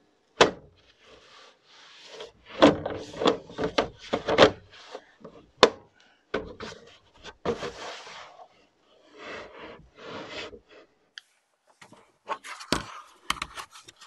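A PlayStation 5's white plastic side panel being worked loose and slid off the console: a run of sharp plastic clicks and knocks with scraping and rubbing between them.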